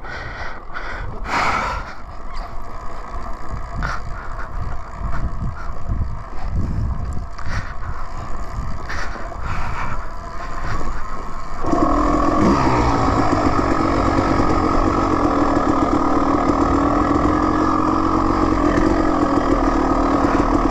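Dirt bike on a dirt singletrack: knocks and clatter from the bike jolting over the trail for the first stretch, then about twelve seconds in the engine sound rises suddenly and holds steady at low revs.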